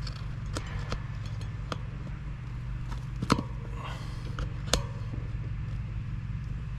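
Sharp clicks and snaps as a plastic tire lever works the stiff bead of a downhill-casing mountain bike tire onto the rim, with two louder snaps about three and four and a half seconds in. A steady low hum runs underneath.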